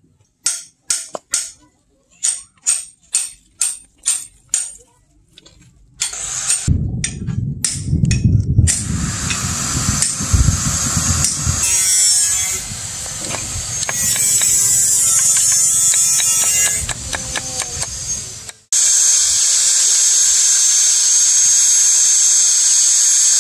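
About ten ringing hammer blows on a knife blade on a small steel anvil, two or three a second. This gives way to a stretch of denser scraping and rumbling work noise. Near the end an angle grinder runs steadily against the steel with a high, even whine.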